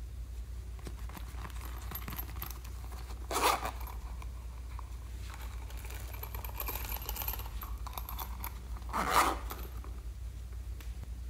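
Hands handling a plastic character toy and loose beads in a glass dish: light rustling and rattling, with two short louder scrapes, one about three and a half seconds in and one about nine seconds in, over a low steady hum.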